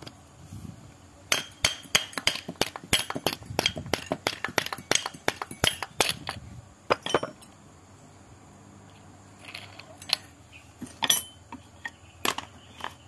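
Metal-on-metal clinking as a car drive shaft's splined end is pulled and worked out of its housing. There is a quick, irregular run of sharp clicks for about six seconds, then a few more clicks near the end.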